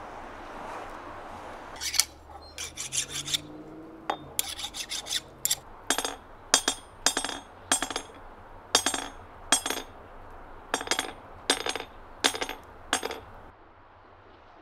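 Hand-tool strokes on a steel hammerhead at the anvil: a quick flurry of short, sharp scraping strikes, then a steady run of about one and a half a second that stops near the end.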